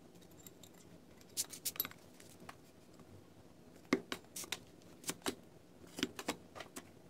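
Small metal parts of a Hatfield SS12 single-shot shotgun action clicking and clinking against each other and the receiver as they are handled and fitted. A few light clicks come about a second and a half in, then a run of sharper clicks from about four seconds on.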